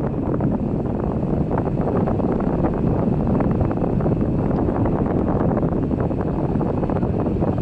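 Steady wind buffeting and rushing over the microphone.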